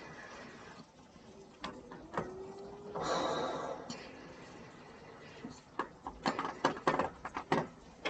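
A short hushed whisper about three seconds in, then a quick irregular run of sharp knocks and clicks near the end.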